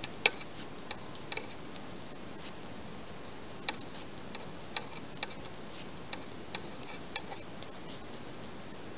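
Metal knitting needles clicking against each other as garter-stitch edge stitches are knitted: irregular light clicks, a few a second, the loudest about a third of a second in, growing sparser near the end.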